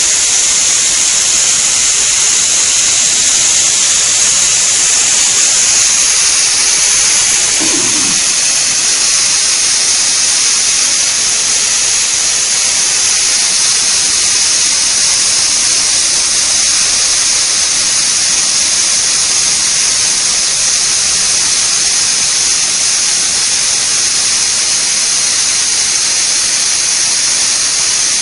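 Pressure cooker's whistle valve releasing steam in a loud, steady hiss.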